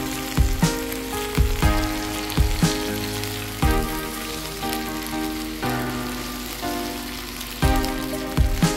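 Background music with a steady drum beat and changing chords, over the sizzle of chicken wings frying in oil in a pan.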